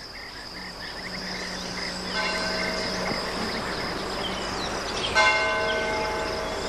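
Church bell struck twice, about three seconds apart, each stroke ringing on, over a steady high chirring of crickets.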